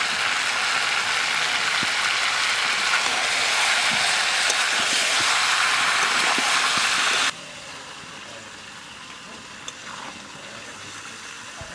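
Chicken pieces sizzling and frying in a hot wok as masala is stirred through. About seven seconds in the loud sizzle cuts off abruptly, leaving a much quieter background with a few light clicks.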